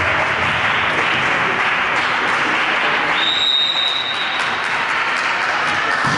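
Spectators applauding and cheering after a rally. About halfway through, a referee's whistle sounds once, a steady high note lasting about a second.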